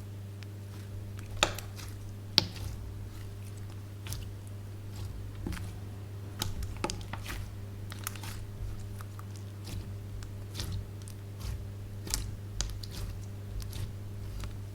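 Slime being squished and worked by hand, making irregular sticky clicks and crackling pops. The two sharpest pops come about one and a half and two and a half seconds in. A steady low hum runs underneath.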